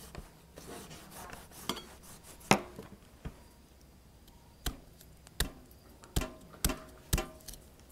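Knife blade striking and chopping into a durian's spiky husk being peeled by hand: a series of about eight sharp knocks, coming faster toward the end.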